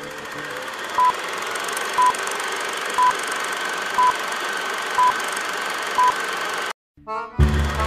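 Film-leader countdown: six short beeps, one each second, over a steady hiss. The sound cuts out briefly near the end, then music starts.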